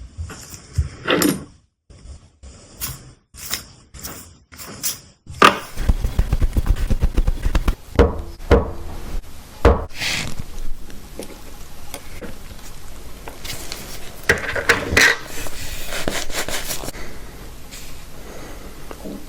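Watchmaking bench work: small metal tools and watch parts clicking and tapping against each other and the bench. First come a few separate sharp clicks, then steadier handling noise with several louder knocks.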